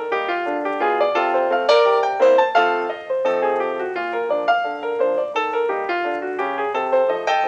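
Piano music, a busy run of quick notes over chords, as a silent-film accompaniment.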